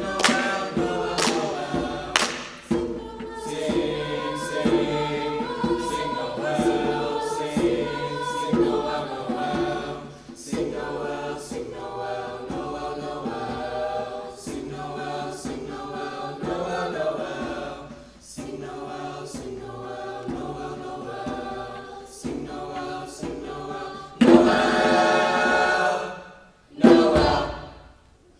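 High school choir singing a holiday piece, swelling into a loud held chord near the end, with one last short chord that cuts off sharply.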